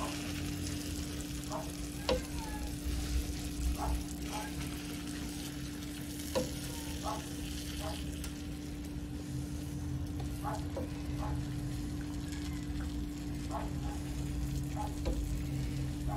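Sugar syrup spooned slowly over a tray of semolina cake, sizzling and hissing as it soaks in, with light spoon ticks every second or two.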